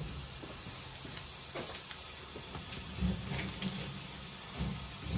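Steady high hiss of kitchen background noise over a low rumble, with a few faint soft taps as dough is folded around meat filling by gloved hands.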